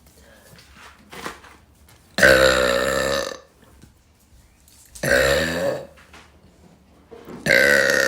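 A woman burping three times in a row, each a long, loud, pitched belch lasting about a second, the third starting near the end.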